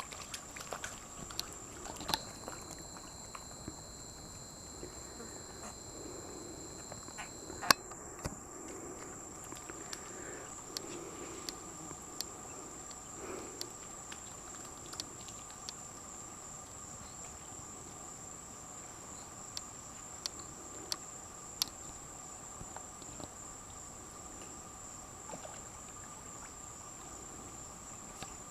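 Insects trilling steadily and high-pitched, several tones at once, with scattered sharp clicks; the loudest click comes about eight seconds in.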